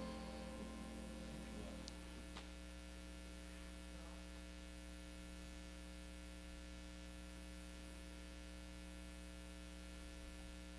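Steady electrical mains hum on the audio feed, low and constant, as the last notes of the song fade away in the first two seconds. Two faint clicks come a little after two seconds in.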